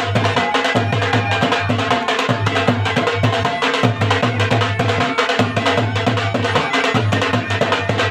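Kishtwari folk music played live: a dhol drum beaten with sticks in a fast, steady dance rhythm, with a been wind pipe carrying a melody over it.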